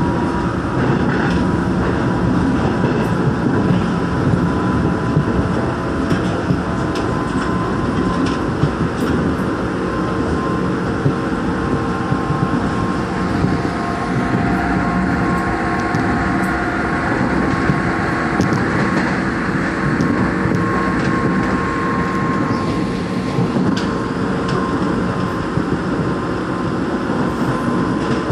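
Rheostat-controlled Seoul Line 1 electric train running at speed, heard from inside the passenger car. There is a steady rumble of wheels on rail under an even whine, with occasional clicks.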